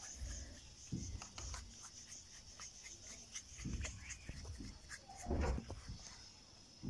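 Hands working a ball of paratha dough in dry flour in a plastic bowl: faint scraping and rubbing with scattered light ticks and a few soft thumps, the loudest about five seconds in.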